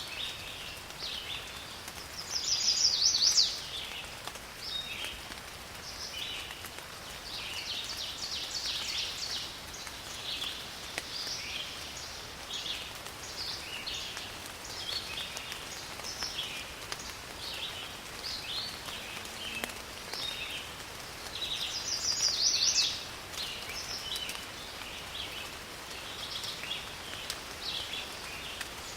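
Steady rain falling in a forest, with birds chirping all through it. Two louder rapid trilling calls come about three seconds in and again around twenty-two seconds in.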